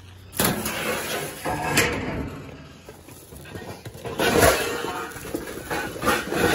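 A steel dumpster's side door pulled open suddenly about half a second in, then plastic bags rustling and crinkling as the contents are dug through by hand, with louder handling noises around four and six seconds in.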